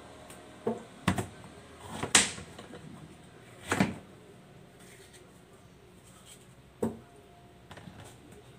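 Kitchen knife cutting a guava on a cutting board: a handful of separate sharp knocks and cuts, with two longer cutting strokes about two and four seconds in.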